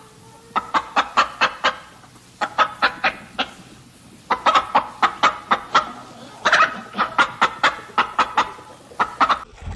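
Domestic fowl calling in quick runs of short, sharp notes, several a second, in bursts with short pauses between them; the calls cut off abruptly near the end.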